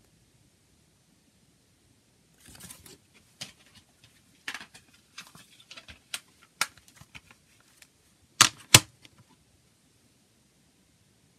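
Paper booklet rustling and a plastic CD jewel case being handled: a string of light clicks and taps, then two loud plastic clacks close together about eight and a half seconds in, as the case is closed and laid on the table.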